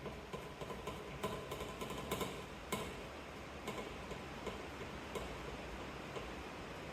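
Irregular light clicks and ticks of small screws and metal hardware being handled and fitted. They come thick in the first three seconds, then only now and then.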